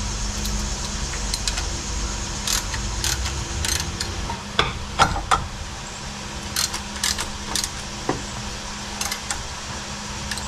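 Ratchet wrench being worked on an alternator bracket bolt of a Pontiac 350 engine: scattered short metallic clicks and clinks, irregular and one or two a second, as the bolt is tightened.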